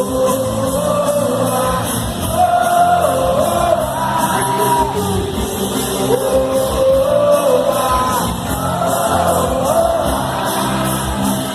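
A song sung over instrumental accompaniment, the voices holding long, gliding notes, with shouts from a crowd mixed in.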